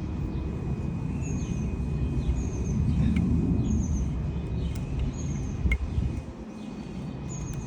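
A small bird chirping over and over, short high falling notes about once a second, over a steady low background rumble with a faint high whine. A couple of small sharp clicks come about three and six seconds in.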